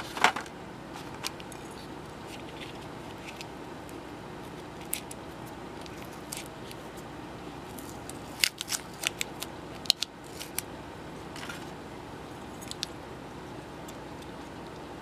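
Small hard plastic clicks and taps as the parts of a plastic vape cartridge battery box are handled and fitted back together, with a small screwdriver in use. A sharp click comes just after the start, a few scattered ticks follow, and a quick cluster of clicks comes about eight to ten and a half seconds in, over a steady low background noise.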